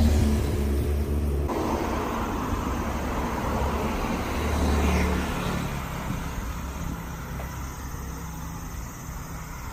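Car driving on a road: a steady low engine and tyre rumble, with a sudden shift in tone about a second and a half in and a slight swell around five seconds.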